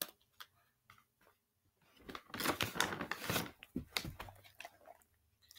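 A dog close to the microphone making a dense run of crunching, rustling clicks about two seconds in, lasting some two seconds, after a few scattered clicks.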